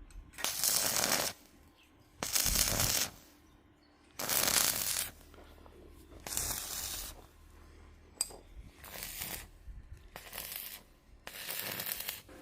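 Repeated harsh scraping strokes, about one every two seconds, each lasting under a second, growing fainter and shorter in the second half.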